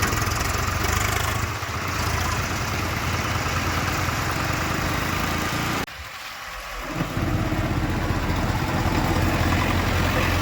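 Diesel engine of a JCB 3DX backhoe loader running steadily as it works, with a low hum; the sound drops off for about a second, six seconds in, then picks up again.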